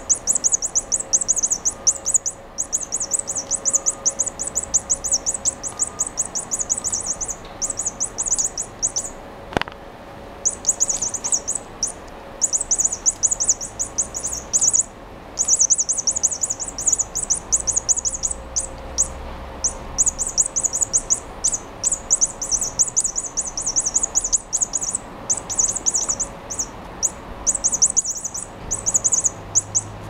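A cat's toy mouse chirping like a bird: runs of rapid, high chirps a few seconds long, with short breaks between them. A single sharp click about ten seconds in.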